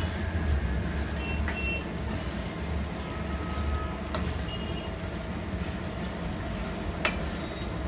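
A steel spoon stirring chicken pieces in a thick masala in a non-stick frying pan, with three sharp knocks of the spoon against the pan, over a steady low rumble.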